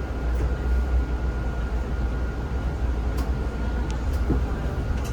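Cabin noise of a Zhongtong hybrid range-extender city bus running: a steady low rumble with a faint, steady high whine.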